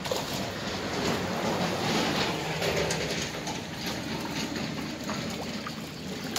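Water splashing and churning as many large fish thrash in a net being gathered in by hand in shallow pond water, a continuous noisy wash with scattered sharper splashes.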